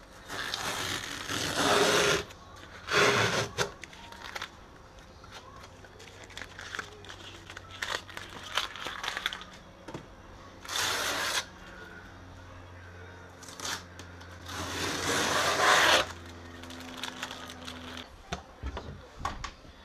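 Masking tape being peeled off a car's painted front wing in several long rips, with rustling and scraping of the tape between them.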